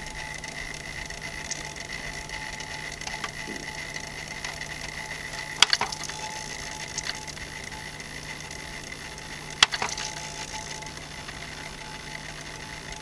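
Teac PD-56 CD player's disc mechanism, miked close up: a steady whine and hum with a couple of sharp clicks, about five and a half and ten seconds in. It is making a hunting sound as it tries and fails to read and play the disc.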